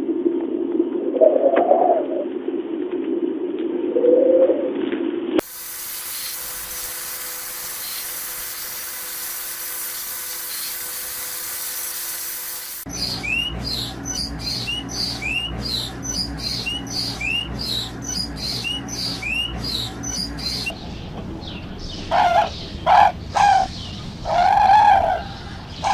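A run of bird calls. First low, repeated cooing of a dove or pigeon, then a steady hiss, then a small bird chirping rapidly with short rising notes. Loud honking calls follow near the end.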